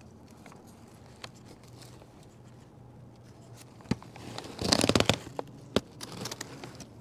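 Aluminium foil and a paper bag crinkling as a wrapped taco is handled, with faint scattered crackles at first and a dense, loud burst of crinkling about four and a half seconds in, followed by lighter crackling.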